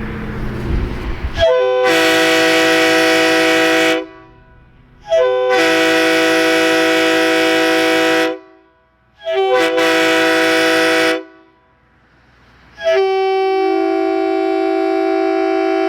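Multi-chime air horn of the train-horn kind blowing four long blasts, each a steady chord of several notes lasting two to three seconds, with short pauses between; the fourth blast runs on longer.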